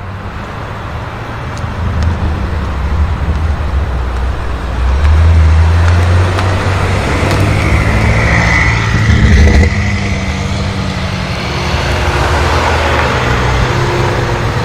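BMW M5 F90's twin-turbo V8 running through a SuperSprint exhaust, a deep rumble that swells about five seconds in and eases back after about ten seconds, with a brief high whine partway through.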